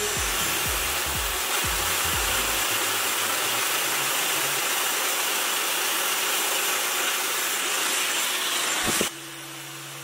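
Dyson Supersonic hair dryer blowing a steady rush of air, switched off suddenly about nine seconds in.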